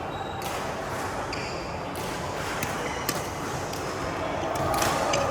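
Badminton rally: a series of sharp racket strikes on the shuttlecock, about six, spaced half a second to a second and a half apart, with short high squeaks of shoes on the court floor.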